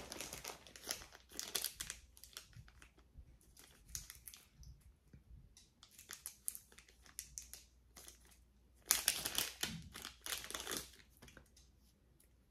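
Crinkly wrapping being handled and opened by hand: a run of soft irregular crackles, with a louder stretch of crinkling about nine seconds in.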